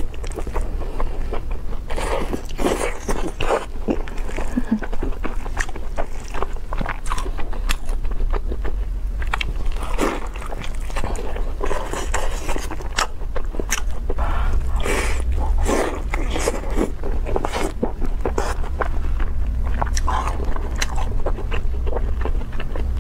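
Close-miked eating sounds: a person chewing and slurping saucy stir-fried noodles and braised meat, with many irregular short clicks and smacks of the mouth. A steady low hum lies underneath.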